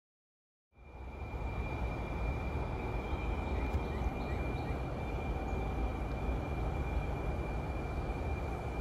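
After a moment of dead silence, a steady low rumble of a vehicle in motion begins, with a thin constant high whine over it.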